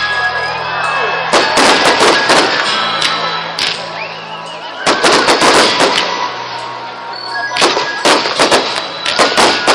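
Fireworks display: salvos of rapid launch bangs and crackling from fans of rising comets, coming in clusters a few seconds apart, over steady background music.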